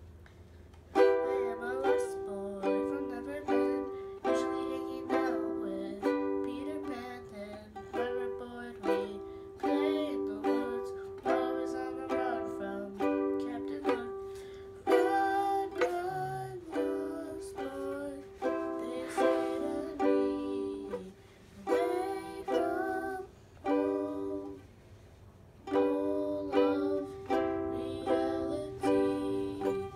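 Ukulele being strummed, chords struck one after another and left to ring and fade, with a brief pause about three quarters of the way through.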